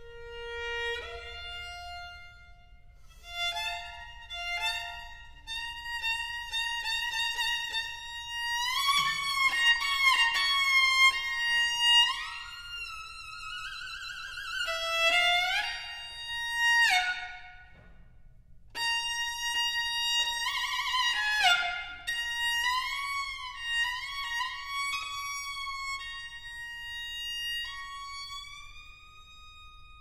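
Violin playing a slow melody high up, with many long sliding pitch bends and swells in volume. Held notes waver with wide vibrato, loudest about a third of the way in.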